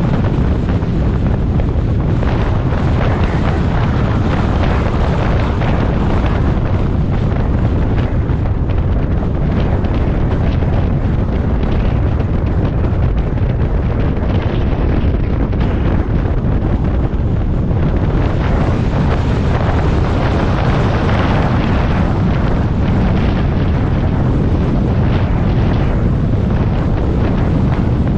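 Loud, steady wind rumble buffeting the microphone, a deep, even roar with no distinct events.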